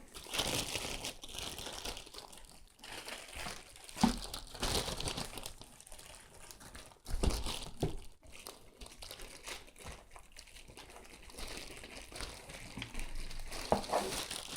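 Packaging crinkling and rustling as a boxed mic stand is unwrapped and handled, with a few light knocks about four and seven seconds in.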